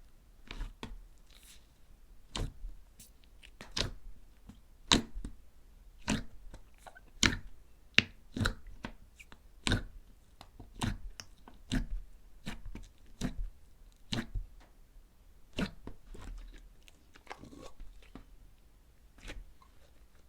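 Crispy dried clay being cracked and crushed, giving a series of sharp crunching snaps, roughly one a second.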